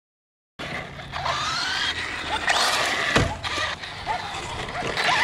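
Arrma Outcast 6S RC truck's brushless motor whining in quick rising revs as the truck is driven hard, with a heavy thump about three seconds in. The sound cuts in about half a second in.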